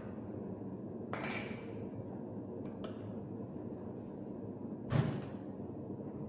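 Kitchen items being handled on a counter over a steady low hum. There is a short clatter about a second in, a couple of faint clicks, and a sharper double knock around five seconds in, the loudest sound.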